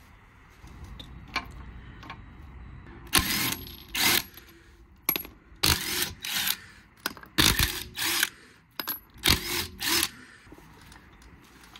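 Cordless impact wrench hammering off a car's wheel nuts, running in about eight short bursts that come roughly in pairs, starting about three seconds in.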